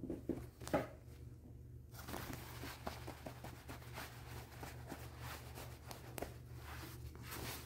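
Satin bed comforter rustling and scuffing under playing kittens, with a couple of sharp taps about half a second in and steady crinkling with small ticks from about two seconds on. A steady low hum runs underneath.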